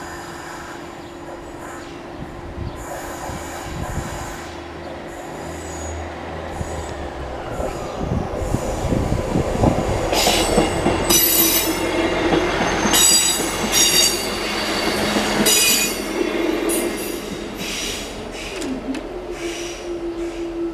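A train passing over the level crossing, building from about eight seconds in, with its wheels squealing on the rails loudest in the middle of the pass. Throughout, the crossing's warning alarm sounds as a steady tone.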